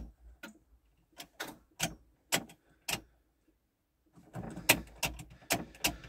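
Sharp clicks and knocks as the ignition key of a Ford 6610 diesel tractor is tried again and again, with no cranking from the starter: the tractor is electrically dead, its starter solenoid connection burnt out. There is a short pause near the middle, then a quicker run of clicks.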